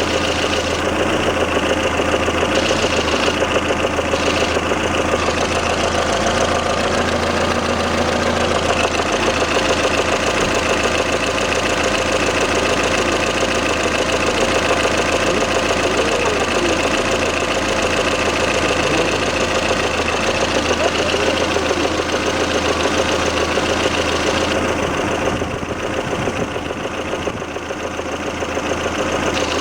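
Lada Kalina's 1.6-litre 8-valve engine running hot with a steady, rapid knock. The owner traced the knock to axial play in the camshaft.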